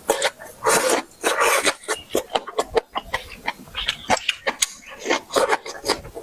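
Close-miked chewing and lip-smacking of someone eating: a quick, irregular run of short mouth sounds.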